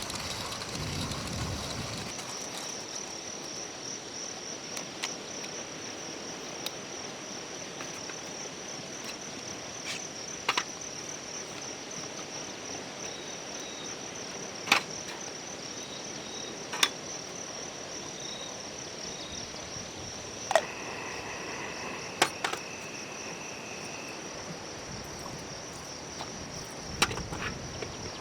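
Insects chirring in a steady, high-pitched chorus, with a scattering of sharp clicks or snaps every few seconds and a second, lower insect tone joining for a few seconds past the middle.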